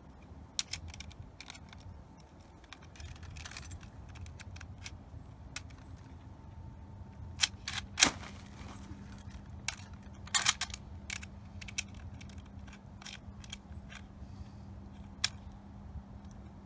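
Metallic clicks and clacks of an M1 Garand rifle's action being handled by hand, with a sharp clack about eight seconds in and a quick cluster of clicks a couple of seconds later.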